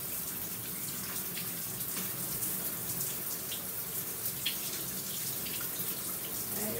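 Shower running steadily, its spray hitting hair and the tub, as hair is wet under it, with a few small splashes.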